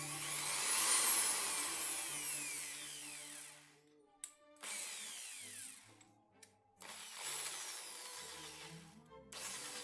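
Ryu 600-watt electric drill running in four bursts, its motor whine sweeping up and down in pitch as it speeds up and slows, with short stops between runs. Background music plays underneath.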